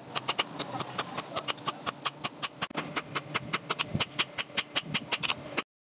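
Hand hammer striking a hot steel blade, forged from an old file, on a square steel block anvil in a quick, even rhythm of about five blows a second. The sound cuts off suddenly near the end.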